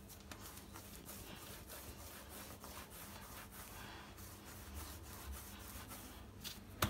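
Hands rolling and pressing soft pizza dough on a floured marble countertop: faint, soft rubbing strokes, with one sharp tap just before the end.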